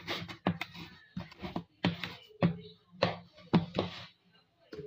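Potato masher pounding pumpkin in a plastic basin: repeated soft thuds with a sharp knock on each stroke, about two a second, stopping shortly before the end.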